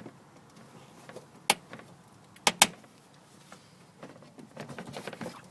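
Sharp clicks and clacks of small fasteners being pried off under a car: one click about a second and a half in, a quick double click about a second later, then fainter scattered clicking near the end.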